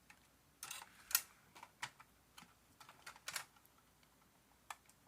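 Scattered light clicks and taps with a few brief rustles, made by a small diecast model truck being picked up, turned over and set down.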